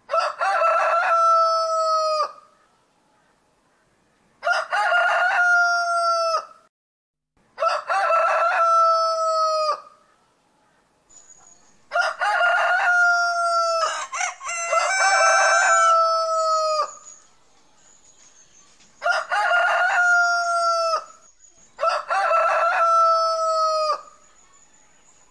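Roosters crowing: about seven full cock-a-doodle-doo crows, each about two seconds long, with pauses of one to three seconds between them. Around the middle, two crows overlap.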